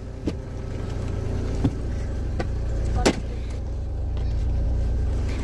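A few sharp knocks and clunks as a car's folding rear seat and things in the back are pushed about by hand, the loudest about three seconds in, over a steady low rumble.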